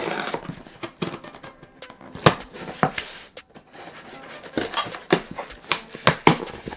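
A scissor blade, used like a knife, slitting the packing tape on a cardboard box: irregular scrapes and sharp clicks as the blade drags along and knocks against the cardboard.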